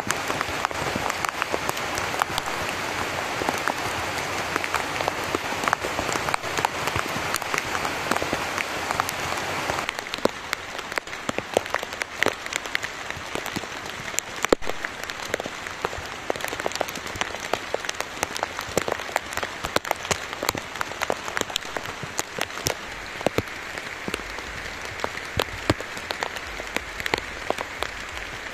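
Heavy rain falling steadily, a dense hiss full of sharp drop hits. About ten seconds in it eases slightly, and single drips stand out more.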